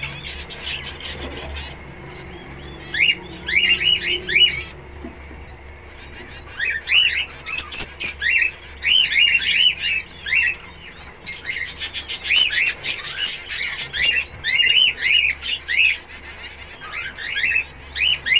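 Zebra finches calling: short, repeated chirps in quick bursts, with brief pauses between the bursts.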